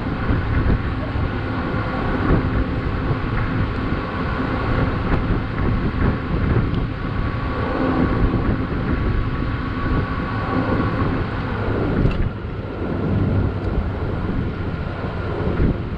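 Strong wind buffeting the microphone: a steady, dense rumble. A faint steady hum sits underneath and drops away about twelve seconds in.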